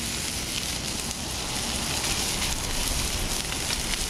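Chopped bacon sizzling steadily in a sauté pan over a gas burner as its fat renders, with faint small pops.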